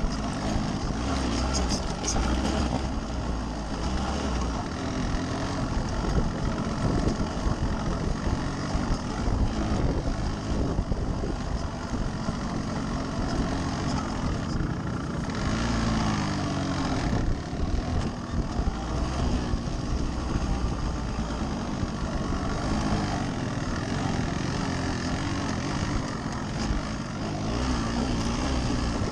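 Yamaha RX135's single-cylinder two-stroke engine running as the motorcycle is ridden, its pitch rising and falling as the throttle opens and closes.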